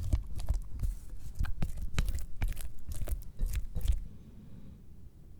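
Kitchen handling of dry baking ingredients: a quick run of small knocks, clicks and scrapes, stopping about four seconds in.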